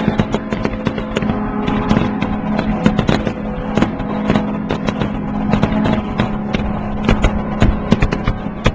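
Fireworks going off in many irregular sharp bangs and crackles, some close together, over a steady low droning tone that fades out about six seconds in.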